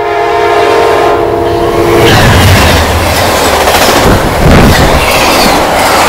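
Amtrak locomotive's K5LA five-chime air horn sounding one blast that starts abruptly and cuts off about two seconds in, then the loud rush and wheel clatter of the passenger train passing close by.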